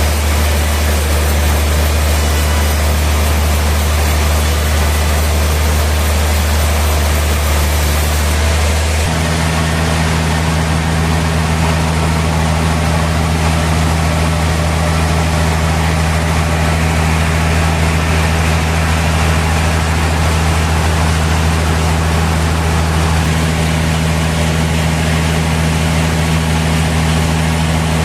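Heavy sawmill machinery running with a steady, loud drone. The pitch of the low hum changes suddenly about nine seconds in.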